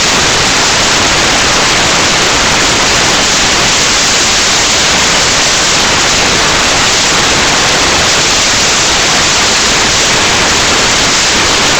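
Loud, steady static hiss from a webcam's audio track, an even noise with no other sound standing out.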